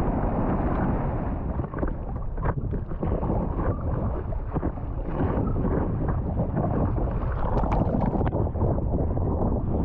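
Wind rumbling on the microphone over water sloshing and splashing around a paddleboard, with many short splashes.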